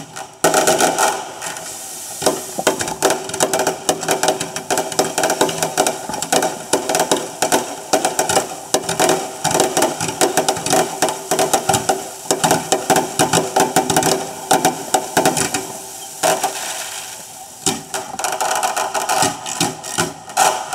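Fireworks going off in a dense, rapid run of bangs and crackles, with brief lulls about two seconds in and shortly before the end.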